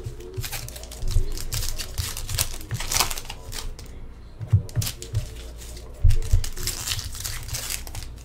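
Plastic and foil card packaging crinkling as it is handled, in irregular crackles, with soft low knocks now and then.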